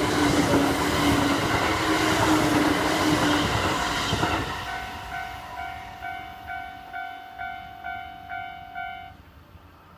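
A Kintetsu train passes over a level crossing with loud wheel and track noise for the first four seconds or so, while the crossing's electronic warning bell rings. After the train has gone the bell's clangs stand out, about two a second, and they stop about nine seconds in.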